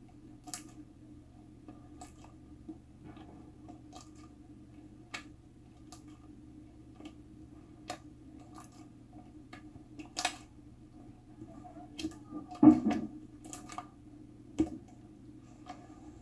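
Irregular light clicks and taps over a low steady hum, with a louder knock about twelve and a half seconds in.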